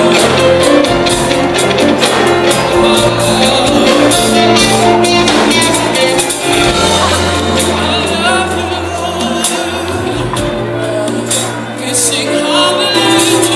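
A live Christian worship band playing amplified through a PA, with a lead singer, a steady bass line and drum hits.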